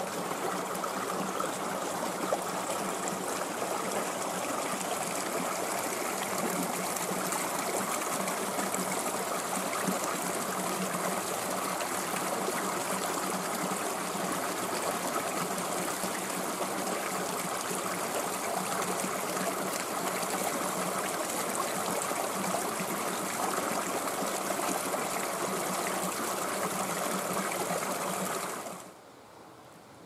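Shallow creek water running and trickling over rocks in a steady rush, cutting off suddenly near the end.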